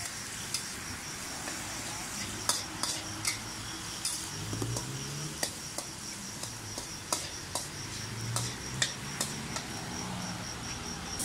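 Metal ladle stirring fried rice in an aluminium wok over a burner: a steady sizzle of frying, broken by irregular sharp clanks of the ladle striking the wok.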